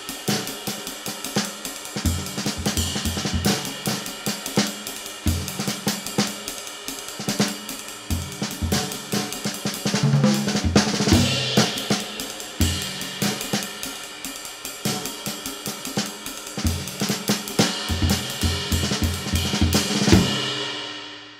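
Background music with a drum kit: a steady beat with cymbals and hi-hat over instruments, fading out near the end.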